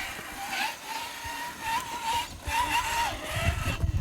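Rlaarlo JK07PRO 1/7-scale RC trail truck's electric motor and gears whining, the pitch wavering up and down with the throttle.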